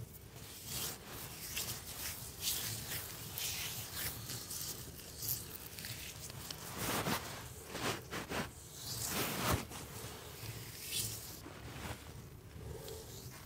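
Close, soft rubbing and rustling strokes at irregular intervals, louder and quicker in the middle.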